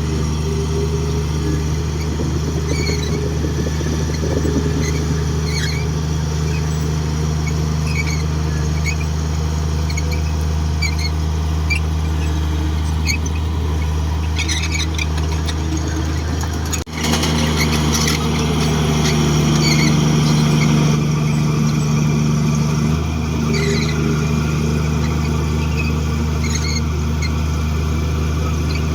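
Komatsu D58 crawler bulldozer's diesel engine running steadily, with short squeaks over it. The engine note shifts abruptly about halfway through.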